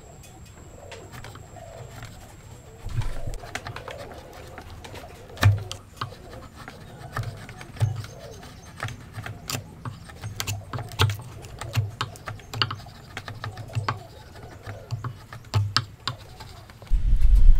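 Hand chisel paring shavings from a notch in a hardwood table leg: irregular short cutting clicks and scrapes with soft knocks, starting about three seconds in. A louder, heavier noise starts just before the end.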